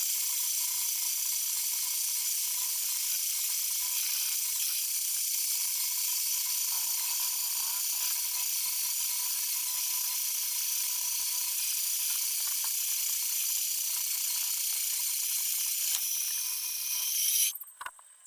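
Homemade bandsaw running steadily, a high hiss with a steady whine through it, as it saws jackfruit wood; the sound drops away abruptly near the end.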